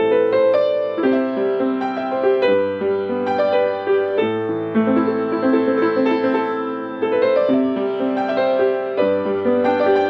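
Hellas upright piano, about forty years old, played with both hands: sustained chords with a melody on top, the bass and harmony changing every second or two.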